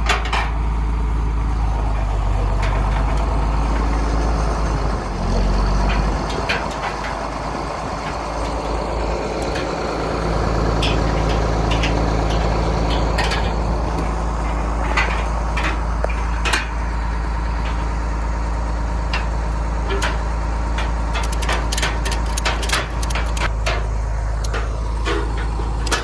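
A vehicle's engine running steadily, with scattered knocks and rattles over it, thicker in the second half.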